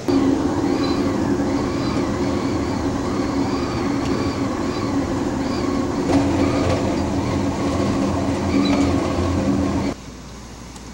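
Moving Amtrak passenger train heard from on board: a steady rumble of wheels on rail with an engine drone underneath. It cuts off abruptly about ten seconds in, leaving a quieter steady hiss.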